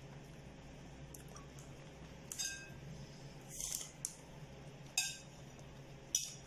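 Light clinks and clicks of tableware at a meal, four short ones about a second apart starting a couple of seconds in, over a faint steady low hum.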